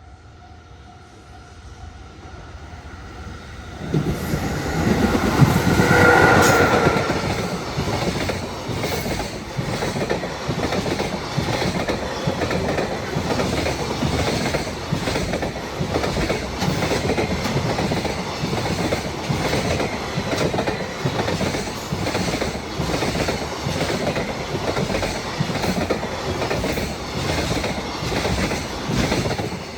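A level-crossing alarm rings steadily while a freight train approaches. About four seconds in, an EF66 100-series electric locomotive passes close by, loudest around six seconds. Its long string of container wagons then clatters over the rail joints in a fast, steady rhythm.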